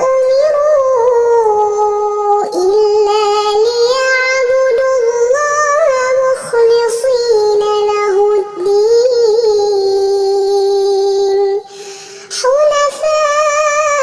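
Melodic Quran recitation in a high voice, chanted in long held notes with ornamented melismatic turns, broken by a short breath pause near the end.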